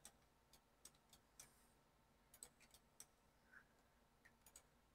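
Near silence with faint, irregularly spaced clicks, about a dozen, of a computer mouse and keyboard being worked.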